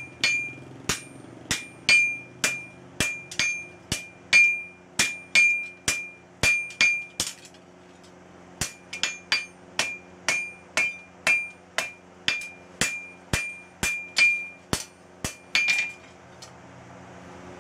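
Hand hammer forging red-hot leaf-spring steel on an anvil: sharp blows about two a second, each with a high ringing note from the anvil, with a short break about halfway. The hammering stops near the end and a rising rushing noise follows.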